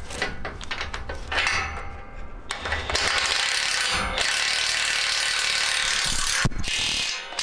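Socket ratchet wrench working the bolts on a vertical tillage rolling-basket bracket. It clicks in short strokes for the first couple of seconds. About three seconds in it changes to a steady, unbroken rasp, which stops abruptly shortly before the end.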